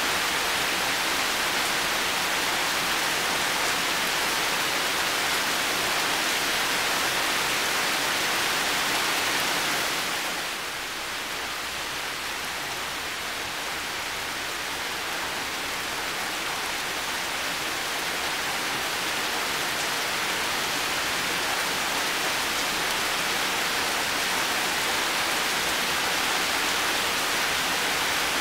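Heavy rain falling steadily, a dense even hiss; about ten seconds in it eases a little and then slowly builds back to full strength.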